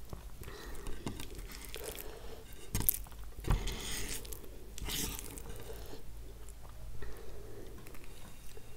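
Close-miked eating sounds: chewing and crunching, with irregular sharp clicks and scrapes of chopsticks against a steel plate as noodles are picked up.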